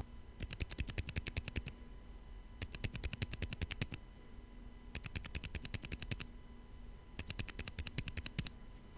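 Typing on a KBD67 Lite mechanical keyboard with lubed silent tactile switches: four quick runs of soft keystroke clicks, each lasting about a second and a half, with short pauses between them.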